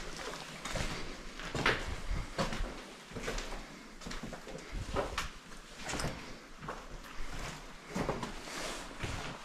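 Footsteps on a floor strewn with rubble and debris, a step roughly every second.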